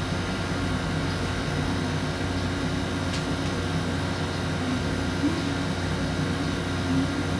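A steady low background hum, with a couple of faint clicks.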